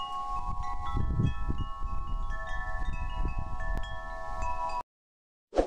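Wind chimes ringing, many overlapping notes struck one after another and left to ring, over a low rumble of wind noise. It all cuts off abruptly about a second before the end, and a brief, sharp, loud sound follows right at the end.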